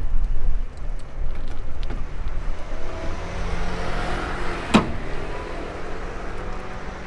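Low street-traffic rumble with a car passing, swelling about three seconds in and fading. About five seconds in comes a single sharp metal clank from the hinged cast-iron egg-bread (gyeranppang) mold plate being swung on its handle.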